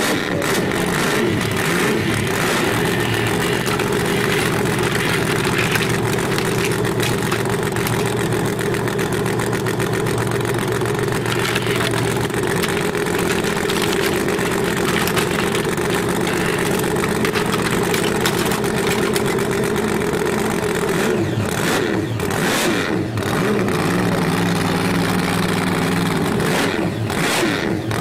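Steady vehicle engine running, rising and falling in pitch as if revving, with a few sharp knocks about three quarters of the way through.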